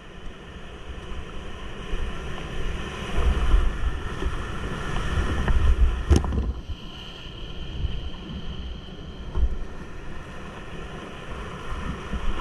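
Whitewater rapids rushing and churning around a kayak as it runs down a rocky drop, growing louder through the middle and easing off after about six seconds. A single sharp knock comes about six seconds in.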